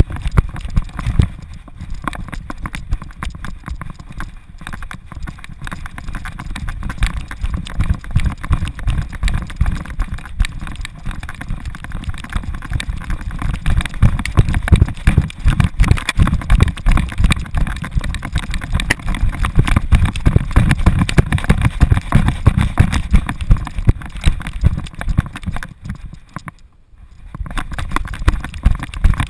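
A GoPro strapped to a running dog's harness, knocking and rattling in a dense clatter over wind rumble on the microphone; it eases off briefly near the end.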